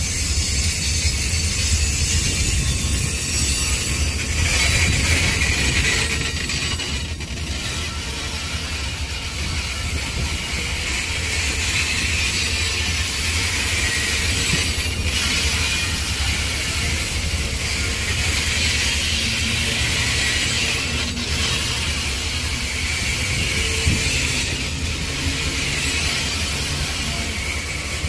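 Amtrak Superliner bi-level passenger cars rolling past close by as the Coast Starlight pulls out of the station: a steady rumble and hiss of steel wheels on rail, with a few brief knocks along the way.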